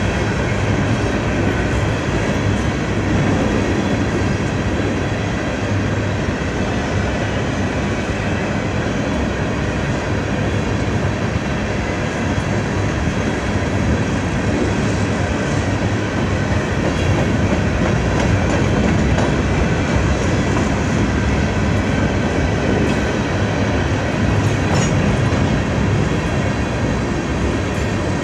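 CSX phosphate train's open-top hopper cars rolling past on the rails: steel wheels running steadily, with rapid clicking and clacking over the rail joints.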